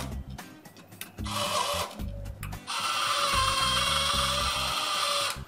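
Small DC gear motor of a robot's gripper arm whirring through its plastic gears as the arm is driven: a short run about a second in, then a steady whine from about three seconds in that stops just before the end. Background music plays underneath.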